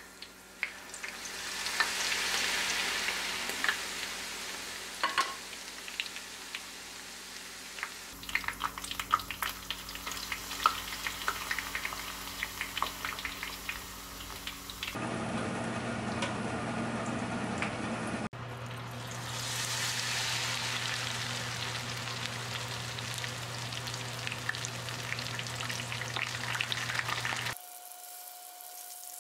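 Battered acacia flowers deep-frying in a small pot of hot oil: a steady sizzle with frequent crackling pops. Near the end the sizzle drops sharply and grows quieter.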